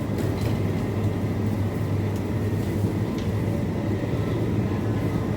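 Steady low hum of supermarket refrigerated display cases and air handling, with a few faint light ticks.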